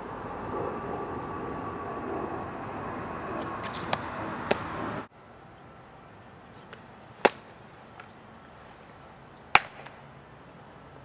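Softball pitches smacking into a catcher's mitt: two small sharp pops over a steady outdoor hiss in the first half, then, after the hiss drops away suddenly about five seconds in, two loud sharp leather pops a couple of seconds apart.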